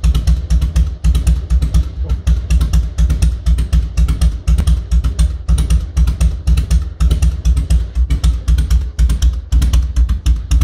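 Harley-Davidson Fat Boy's air-cooled V-twin idling with an uneven, loping beat of deep exhaust pulses, about seven to eight a second.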